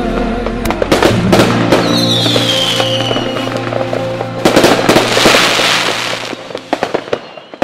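Fireworks: a run of sharp bangs and crackling, with a whistle falling in pitch about two seconds in and a dense burst of crackle around five seconds. It plays over the last held notes of a song, which fade out.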